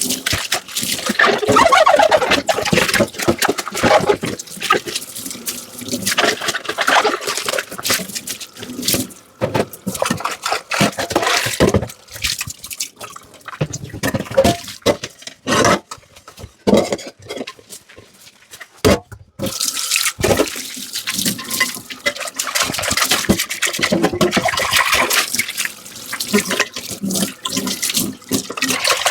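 Dishes being washed in a kitchen sink under running tap water: splashing water with frequent clinks and knocks of crockery. In the middle the water quiets and only scattered clinks are heard, then the splashing starts again.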